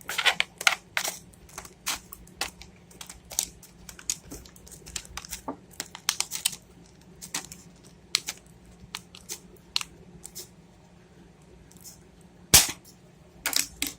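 Scissors snipping and cutting through the packaging of a boxed trimmer: an irregular run of sharp clicks and crinkles, with one loud snap near the end.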